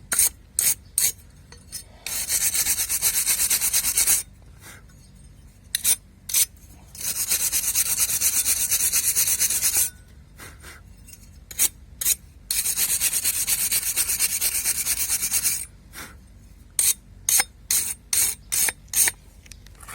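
A brush scrubbing dirt off the mating edges of a car radiator fan motor's housing: short single strokes, then three stretches of fast back-and-forth scrubbing, each about three seconds long.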